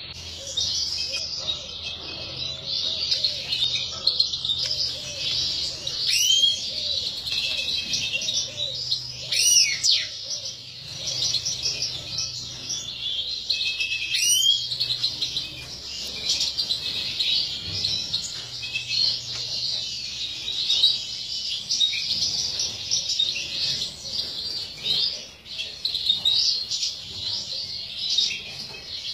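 European goldfinches twittering and singing continuously, with a few louder sweeping call notes about six, nine and fourteen seconds in.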